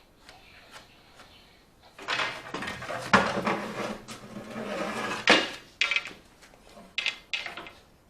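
Wood being handled and worked: about three seconds of rubbing and scraping with two sharp knocks, followed by a few separate clicks.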